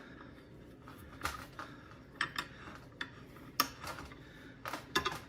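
Irregular light metallic clinks and knocks of steel parts being handled and worked as a machined swivel pad is pressed onto a C-clamp's ball end; the two sharpest knocks come about three and a half seconds in and near the end.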